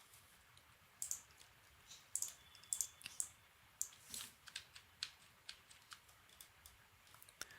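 Faint, irregular clicks and keystrokes from a computer keyboard and mouse in use, a dozen or so scattered taps.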